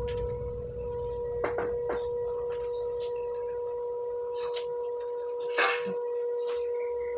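Background music holding a single steady note, with a few faint clicks and taps over it.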